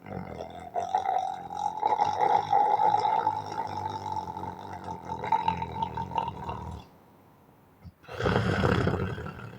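Hard snoring from a sleeping man: one long snore of about seven seconds with a steady high tone running through it, then a pause of just over a second and a second loud snore near the end.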